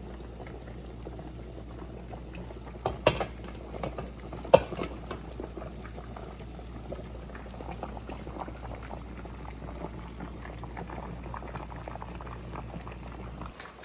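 Pot of seafood dirty rice bubbling steadily as it cooks, with small crackles throughout. Two sharp knocks, about three and four and a half seconds in, and the sound cuts off near the end.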